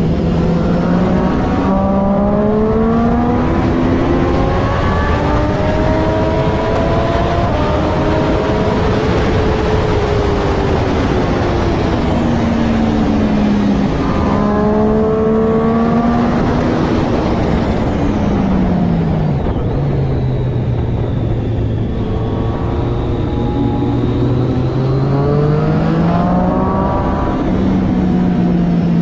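Triumph Daytona 675R's inline three-cylinder engine at race pace: it revs up through the gears with quick shifts three times, and between these runs its pitch falls as the bike slows for corners, staying low for a few seconds past the middle.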